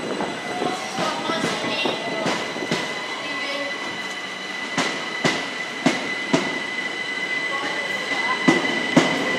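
Southeastern electric multiple unit moving slowly along the platform, with a steady high-pitched ring from the wheels or drive and sharp clicks as the wheels cross rail joints, about two a second in the second half.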